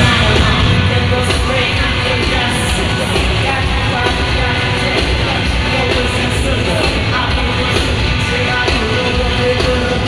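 Loud amplified live pop-rap music over an arena PA, with a male singer's vocals on top, recorded from the audience.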